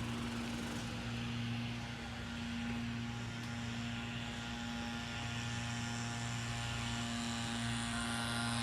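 A steady mechanical hum holding one constant low pitch throughout.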